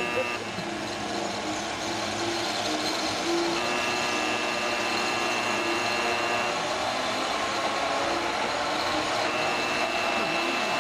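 Steady mechanical running noise with a high whine that comes in, drops out, and returns near the end.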